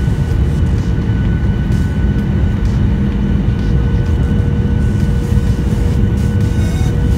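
Jet airliner engines running steadily, heard inside the cabin at a window seat over the wing: a constant low roar with a few faint steady whining tones.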